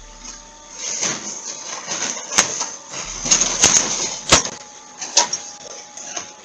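A series of irregular knocks and clatters over a rustling noise, about eight sharp hits between about one and five and a half seconds in, through a low-fidelity camera microphone.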